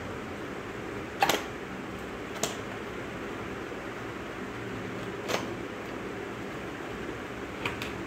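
Scissors snipping through the tape seals of a cardboard keyboard box: a few sharp clicks, the loudest about a second in, others at about two and a half and five seconds, and a quick pair near the end, over a steady room hum.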